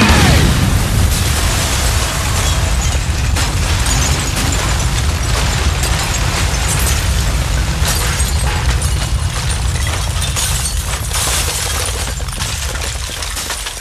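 Loud, dense distorted noise with a heavy low rumble and crackle, steady and then fading out near the end: the noisy outro of a heavy rock song.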